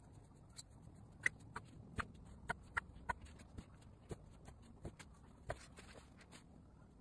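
Light, irregular clicks and taps of small silver beads rattling in a small plastic pot as they are picked out with a thin stick, about fifteen in all, the sharpest between one and three seconds in.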